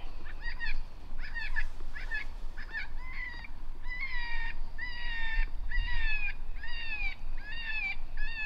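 Electronic predator caller playing a high-pitched animal distress cry, repeated at an even pace of a little over one cry a second. Each cry is short with a brief downward slur, used to lure coyotes in.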